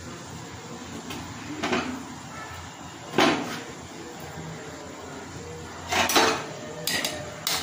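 A few separate knocks and clatters of kitchen utensils against a metal kadai as boiled potato pieces are added to the curry, the loudest about three seconds in and several more close together near the end.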